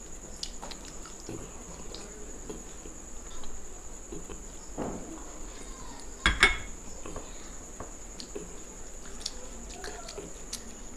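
Light clinks and taps of a glass bowl against a plate, with one louder clink about six seconds in, over a steady faint high-pitched tone.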